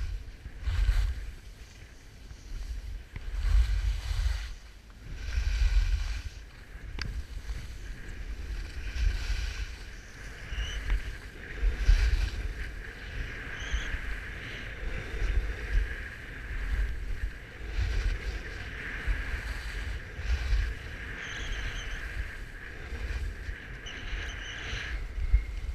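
Wind buffeting the microphone of a skier going downhill, in gusty low rumbles every few seconds, over the hiss and scrape of skis turning on packed snow.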